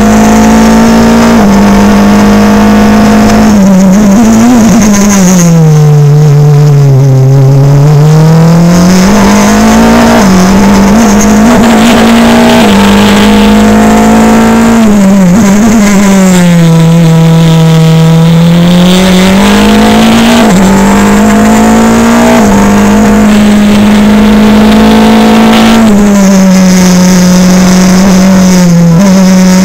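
Formula Renault single-seater's four-cylinder racing engine running hard at high revs, heard from on board. The revs fall twice, about six seconds in and again about seventeen seconds in, and climb back each time, with small steps in pitch along the way.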